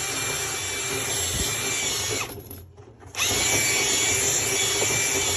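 Electric motor of a dryer-vent cleaning tool running steadily with a high whine, clearing lint from a clogged dryer vent. About two seconds in it winds down and stops, then spins back up about a second later and runs on.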